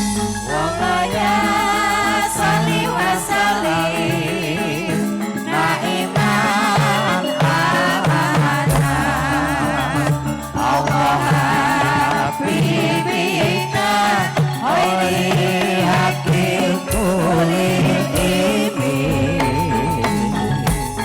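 Islamic devotional (sholawat) music playing: a wavering, ornamented melody line over a sustained accompaniment.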